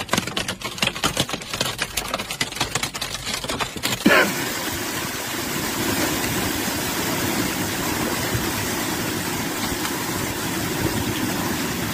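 Hailstones pelting a car, heard from inside the cabin: dense, rapid clattering on the roof and windscreen for about four seconds, then a steady heavy roar of hail.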